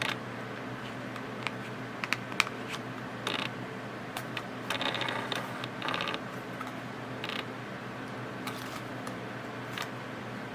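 Camera lens autofocus motor clicking and buzzing in short bursts as it hunts for focus, with scattered sharp clicks, the longest burst about five seconds in.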